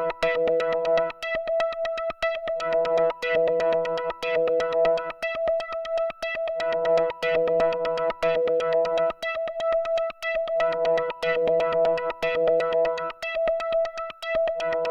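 Synthesizer sequence from the Arturia Modular V3 software modular synth, playing a fast run of evenly spaced notes over a held tone. Lower chord layers come and go in a pattern that loops about every four seconds.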